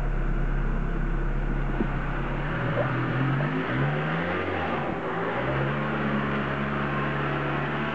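Freshly rebuilt Toyota 2ZZ-GE 1.8-litre four-cylinder engine running just after its first start-up; its speed rises and dips a few seconds in, then settles into a steady idle.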